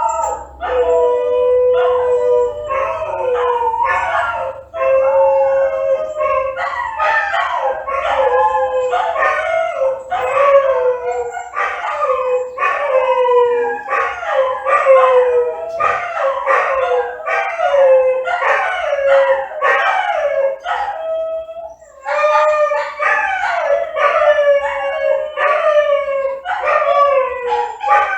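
Dogs howling and wailing, several long wavering cries overlapping one another, most sliding down in pitch.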